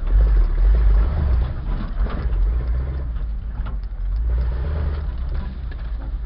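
Off-road 4x4's engine running as it crawls along an overgrown trail, a steady low rumble loudest in the first second, with scattered knocks and scrapes from the vehicle and brush.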